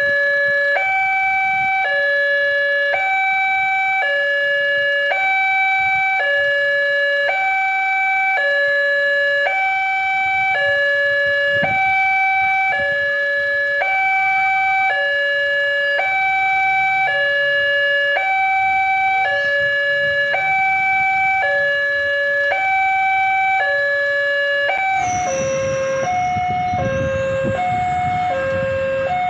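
Railroad level-crossing warning alarm from the loudspeaker on the crossing post: an electronic two-tone signal alternating steadily between a lower and a higher tone, each held about a second. Near the end the two tones alternate a little faster over a low rumble.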